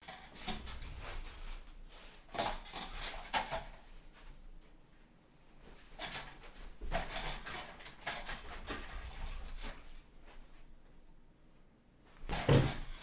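Irregular rustling and knocking handling noises in a small room, with one loud thump near the end.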